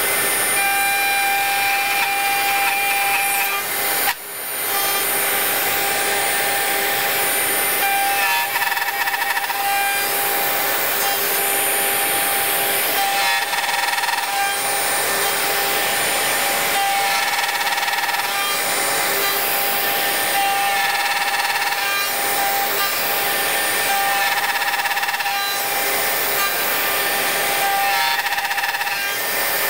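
Bosch GOF 1250 CE router running at speed in a box-joint jig, its bit cutting finger joints in a wooden board: a steady high whine, with a rougher cutting surge every three to four seconds as it passes through each finger. A dust extractor draws air along with it, and the sound drops away briefly and sharply about four seconds in.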